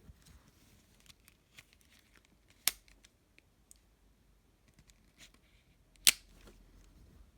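Two sharp clicks about three and a half seconds apart, with faint small ticks and rustling of handling between them.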